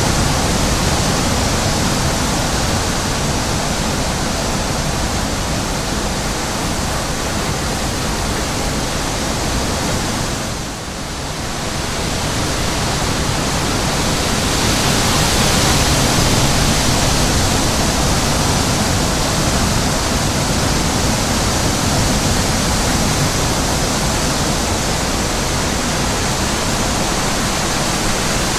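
Steady rush of wind, an even hiss across all pitches that dips briefly about eleven seconds in.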